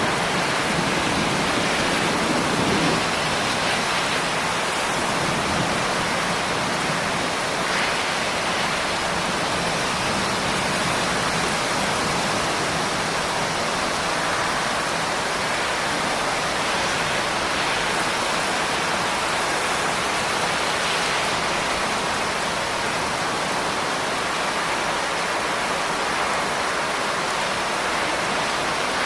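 Steady, heavy rain: an even hiss with no single drops standing out. A low rumble of thunder dies away in the first few seconds.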